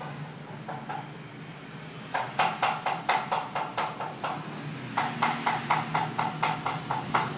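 Two runs of quick, even clicks or taps, about four to five a second, each run lasting about two seconds, starting about two seconds in and again about five seconds in.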